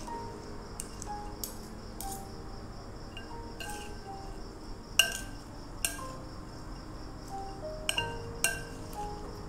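Metal cutlery clinking against a ceramic bowl as a rocket salad is tossed: a scattering of sharp clinks, the loudest about halfway through and several close together near the end, over soft background music.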